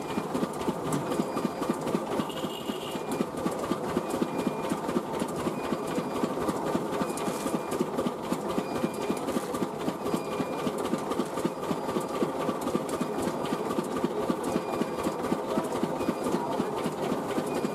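Poha (flattened-rice) making machine running with a fast, even, mechanical clatter of repeated knocks that holds steady throughout.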